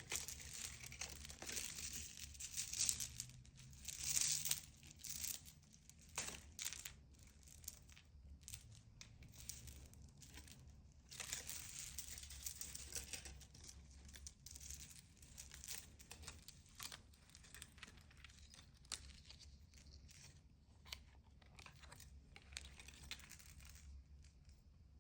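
Packaging crinkling and being torn open by hand. The rustling and crackling is irregular: busiest and loudest in the first few seconds, then sparser.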